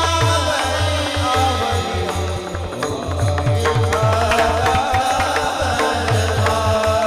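Marathi kirtan devotional music: a sung melody over a steady beat of low hand-drum strokes and sharp percussion clicks.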